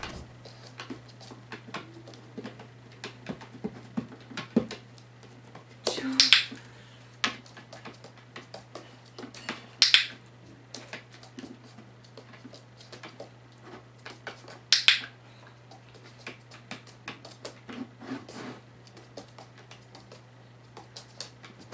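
Small taps and clicks of a Shetland sheepdog's paws on a small box and treats passed from hand during a shaping session, over a low steady hum. Three short, sharp, hissy sounds stand out, about six, ten and fifteen seconds in.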